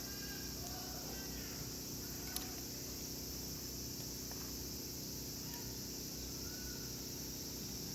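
Insects chirring steadily and high-pitched, with faint voices in the first second and a single sharp click a little over two seconds in.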